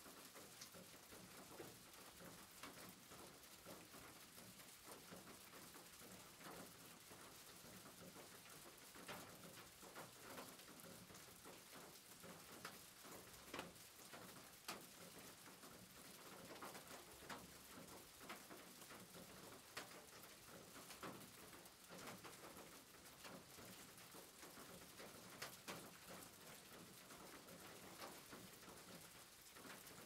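Faint rain falling on a roof: an even hiss with irregular drops and patters scattered through it.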